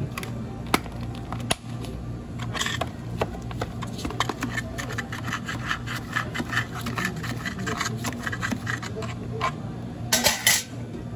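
Long spoon stirring a slushy jelly drink in a plastic cup, with quick scraping and clicking against the plastic, then two sharp plastic snaps near the end as a dome lid is pressed on.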